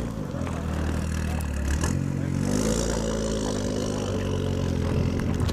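Supercar engine running close by, with its revs lifting a little about two seconds in and then holding.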